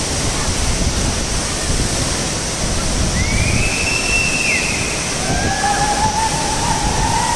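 Waterfall's steady rush of falling water. Faint high calls sound over it about three seconds in and again from about five seconds.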